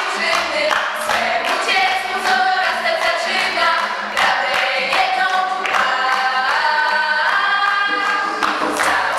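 A group of girls singing a Polish scouting song together as a choir, accompanied by an acoustic guitar.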